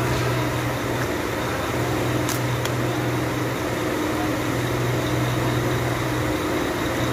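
A steady low mechanical hum from a running machine, with a faint rustle of paper wrapping being handled.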